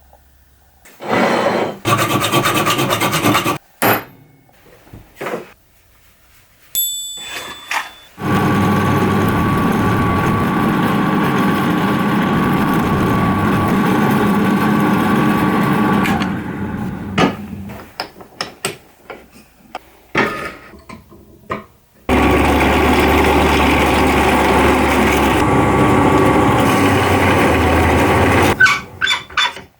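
A tool working on wood or metal in three runs, about two, eight and six seconds long, each with a steady whine under the rasping. Between the runs there are scattered knocks and clicks.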